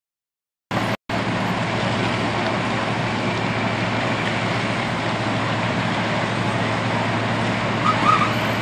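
Steady drone of vehicle engines with street noise, cutting in suddenly after silence, with a brief dropout about a second in.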